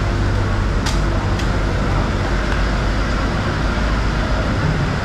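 Steady loud background din with a low hum, and two short sharp clicks about a second in.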